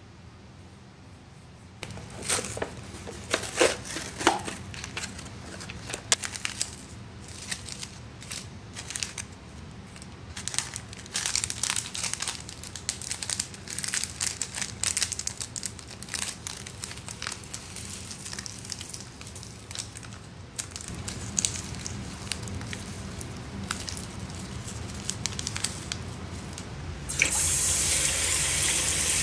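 Crinkling, tearing and rustling of the plastic packaging of an instant ramen cup, a long run of small crackles. Near the end a kitchen faucet is turned on and water runs steadily into the sink.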